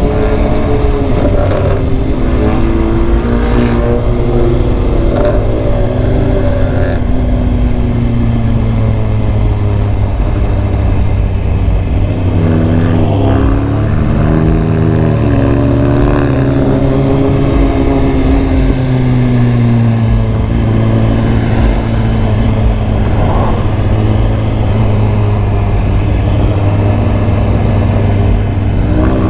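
Vehicle engines on the road, led by a loud car exhaust with a trumpet-like note. Its pitch rises and falls again and again as the vehicles speed up, slow and change gear, over a steady low rumble.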